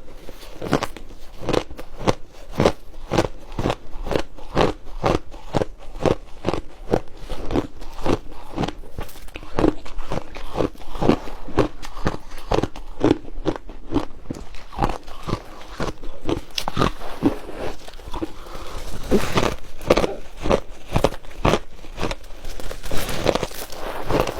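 Mouth chewing refrozen shaved ice, with crisp crunches in a steady rhythm of about two to three a second.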